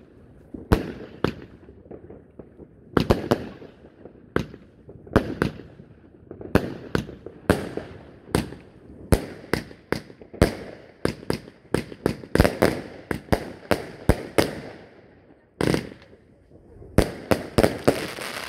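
Aerial fireworks bursting overhead: a long irregular series of sharp bangs, about one to three a second and thickest in the middle, then a dense crackle near the end as several gold bursts go off together.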